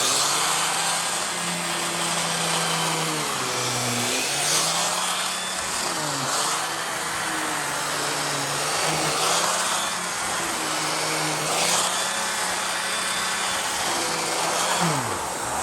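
Bissell Pet Hair Eraser Turbo upright vacuum running with its air-driven turbo pet tool spinning on the hose. The tool's hum sags in pitch and recovers several times as it is pressed down and bogs down slightly under the load.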